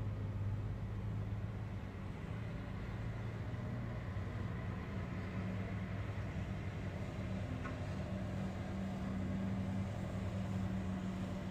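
A steady low mechanical hum, like an engine running at a constant speed.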